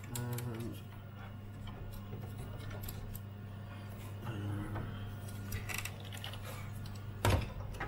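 Hands handling a Commodore 128D's plastic case and mains cable: small clicks and rattles of plastic, with a sharp knock near the end.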